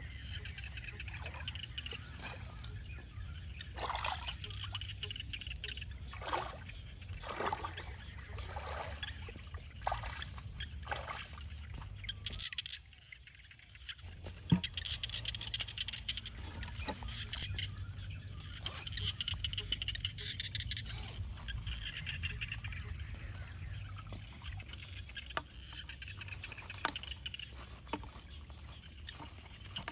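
Water trickling and dripping as a wet mesh net trap is lifted and shaken out over a stream, with scattered rustles and splashes from the net. Short high chirping calls from birds or frogs come and go in the background.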